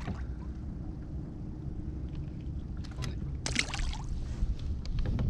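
Wind buffeting the microphone and water lapping against a kayak, with a few sharp clicks and a brief rustle about three seconds in as fishing gear is handled.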